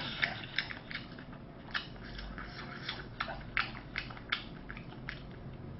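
A person chewing a mouthful of food with the mouth covered by a hand. The chewing gives a string of irregular soft clicks and crunches.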